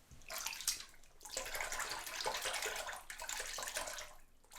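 Water running from a tap: about a second of flow, a brief pause, then nearly three seconds more.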